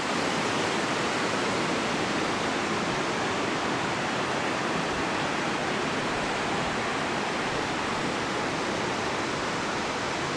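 A large river's water rushing steadily below: an even, unbroken wash of flowing water.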